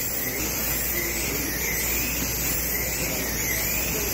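Slot cars racing round the track: the high whine of their small electric motors rises and falls over and over as the cars pass, over a steady low hum.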